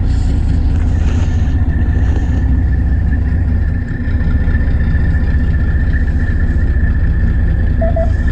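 A fishing boat's engine running steadily, a low drone with a thin constant whine above it. A brief beep-beep sounds near the end.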